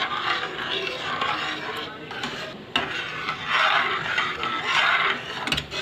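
Spatula stirring thick, creamy dal makhani in a pan: a wet scraping and sloshing that swells and fades unevenly as the dal is worked towards the boil.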